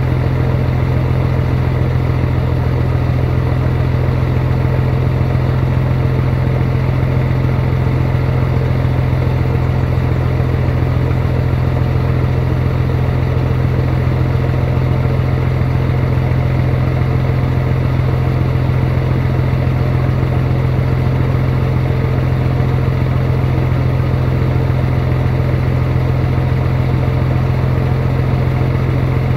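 Scania 111S truck's six-cylinder diesel engine idling steadily on its first run of the day, with the air compressor making what the owner calls a strange noise.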